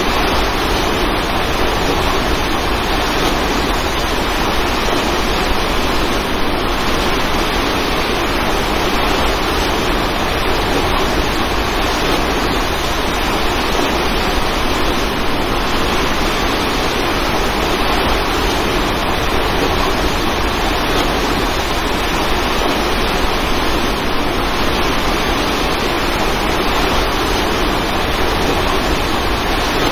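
Waterfall: a steady, loud rush of falling water, even and unchanging.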